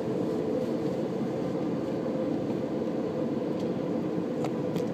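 Steady jet-engine and airflow noise inside an Airbus A330's cabin at a window seat over the wing, an even rush with a faint steady tone running through it.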